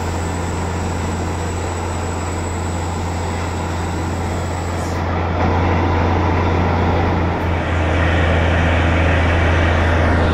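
Borewell motor pump running: a steady low hum under a constant rushing noise, which grows a little louder about halfway through.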